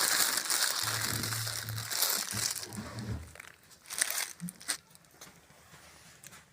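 Plastic packaging crinkling and rustling as noodles are added to the pot for thukpa, loudest in the first three seconds, followed by a few light clicks.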